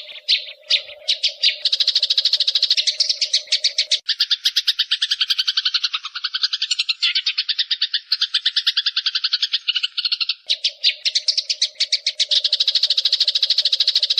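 Eurasian tree sparrow giving a long, rapid chattering call of sharp high notes, about a dozen a second, the agitated chatter of a sparrow in a fight. The notes change to a different, two-pitched pattern for a few seconds in the middle, and a steady low hum sits under the chatter before and after that.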